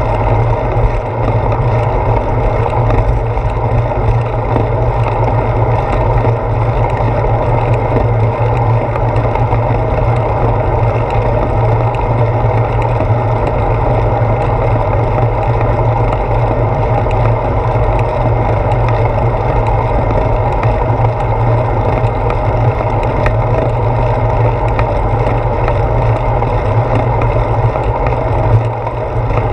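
Steady rumble of wind and road vibration on a handlebar-mounted GoPro Hero 4 as a bicycle rolls along the road, loud and even, with no break.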